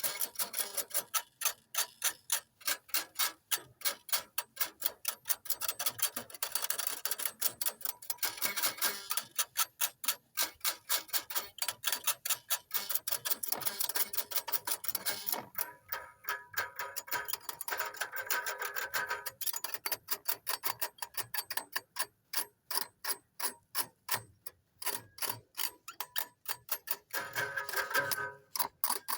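Rapid, even clicking or clacking, about five strokes a second, with short stretches of ringing tone about two-thirds of the way in and again near the end.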